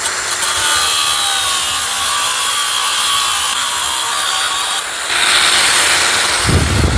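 Power tool cutting, a loud steady rasp with a faint whine. It grows louder and coarser about five seconds in.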